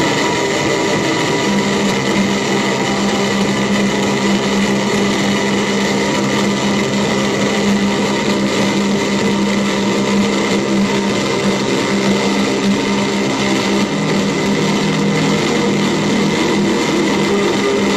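Live electronic noise music: a loud, dense, steady buzzing drone over a held low hum, the hum's pitch shifting slightly about 14 seconds in.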